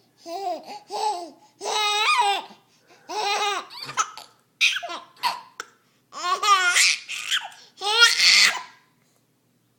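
A baby laughing in repeated high-pitched bursts, with the longest and loudest peals about two seconds in and from about six to eight and a half seconds in, stopping about nine seconds in.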